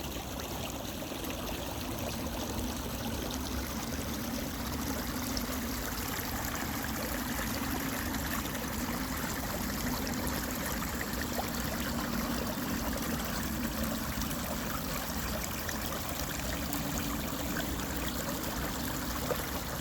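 Water running steadily, a continuous even rushing without breaks.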